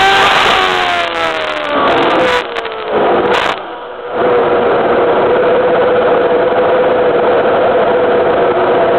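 2011 Team Lotus T128 Formula One car's 2.4-litre Renault V8, heard from under the nose: the engine note falls in pitch as the car slows and dips about three seconds in, then holds one steady note.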